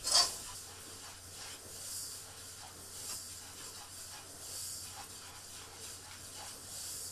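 Steady faint sizzling hiss from gram flour toasting in a pot on the stove, with a sharp knock of the stirring spatula at the very start and a few faint scrapes as it is stirred.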